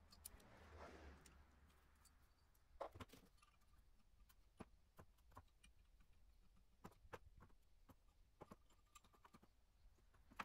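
Faint, scattered clicks and taps of metal tools and valve parts being handled on a D24 diesel cylinder head as it is stripped, about half a dozen small knocks over the stretch.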